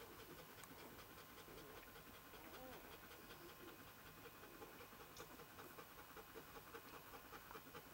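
Faint panting and small, repeated suckling clicks from newborn Northern Inuit puppies nursing on their mother.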